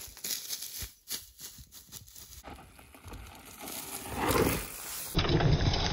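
A mountain bike rolling down a dry dirt and bracken slope, its tyres scrabbling over the loose ground, getting louder to a peak as it passes close about four seconds in. A little after five seconds the sound cuts abruptly to a louder, deeper rush.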